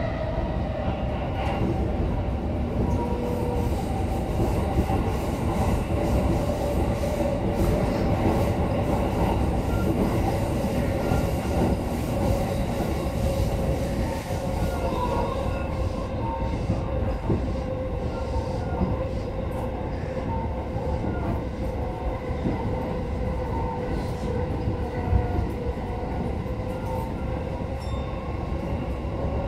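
Keihin-Tohoku/Negishi Line electric commuter train running between stations, heard from inside the car: a steady rumble of wheels on rails with a steady high tone over it. There are scattered knocks, the sharpest about 25 seconds in.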